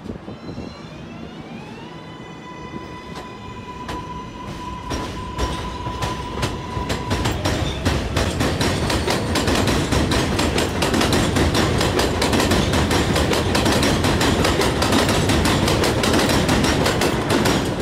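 Kawasaki R188 subway train passing on the elevated track. The traction motors' whine rises in pitch over the first two seconds and then holds steady, while the clatter of wheels over rail joints builds into a loud, rapid run of clicks as the cars roll by.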